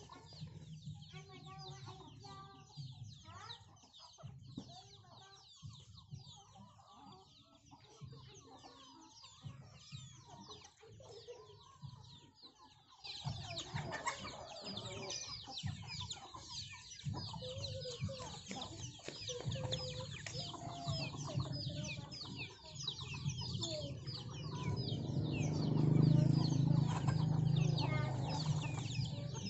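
A flock of hens and chicks clucking and peeping constantly as they feed, with many short, high, falling cheeps that grow louder about halfway through. A low rumble swells near the end.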